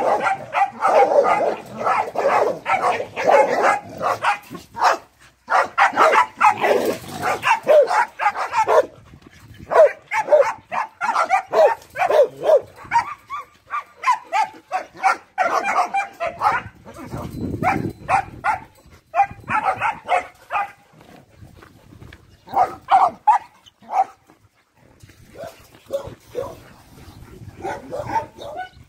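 Several dogs barking in rapid, overlapping volleys, densest in the first nine seconds, with short lulls later on.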